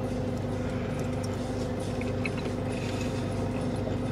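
Steady low hum of a parked vehicle running, heard inside its cabin, with a few faint small clicks over it.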